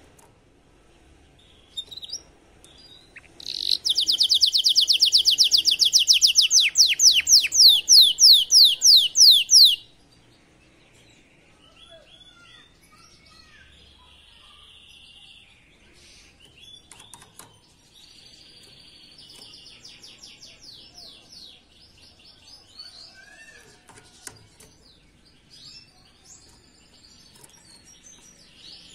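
Canary singing: a loud, fast trill of repeated notes lasting about six seconds that spaces out toward its end, followed by quieter scattered twitters and a softer trill.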